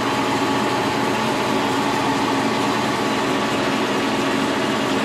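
Brown & Sharpe No. 2 horizontal milling machine running, its 50-taper spindle turning a 5-inch Wohlhaupter boring and facing head with the automatic feed engaged so the slide feeds out. It makes a steady machine-running sound with a faint steady whine.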